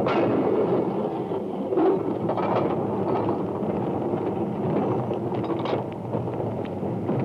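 Wooden goods wagons rolling past during shunting, a steady rumble of wheels on the track with irregular clanking knocks.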